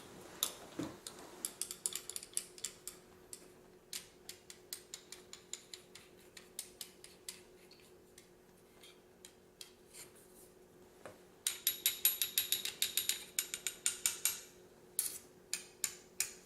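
Steel sockets clinking and tapping against one another as they are picked up and set down in a row, with a quick run of rapid clinks about two-thirds of the way through.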